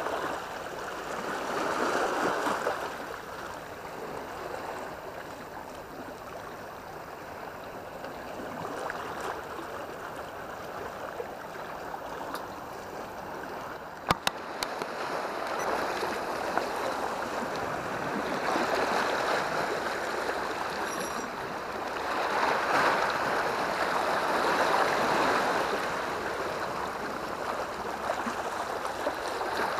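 Sea water washing and lapping against a concrete seawall and rocks, swelling and easing every few seconds, with a single sharp click about halfway through.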